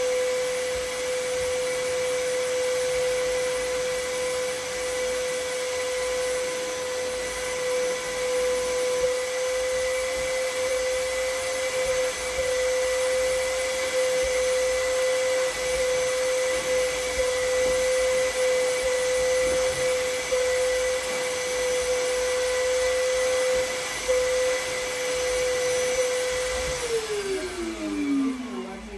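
Stainless-steel canister vacuum cleaner running with a steady motor whine as its hose is worked over a sofa. Near the end it is switched off and the motor winds down, the whine falling in pitch as it fades.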